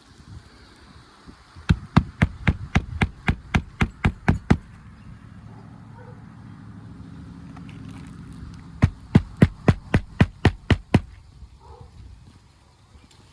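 Hand hammer driving roofing nails into a new asphalt shingle: two quick runs of sharp strikes, about four a second, the first starting a couple of seconds in and the second past the middle. A low steady hum sits between the two runs.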